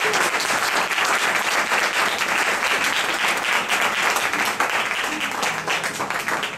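Audience applauding: a dense, steady patter of hand claps.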